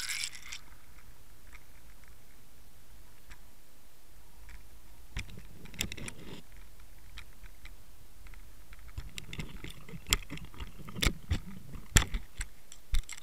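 Sharp clicks and knocks on the housing of a Water Wolf underwater camera, picked up from inside the housing over a steady water hiss. They are scattered at first, then come thick and fast from about nine seconds in, loudest near the end, as cod strike and bite at the camera.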